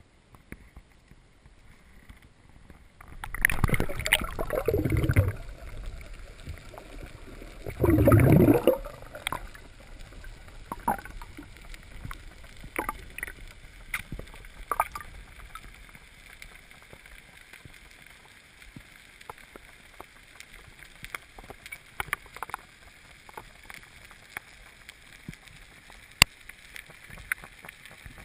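Water splashing and sloshing in two loud surges, about three seconds in and again about eight seconds in, then quieter gurgling with scattered small clicks and knocks.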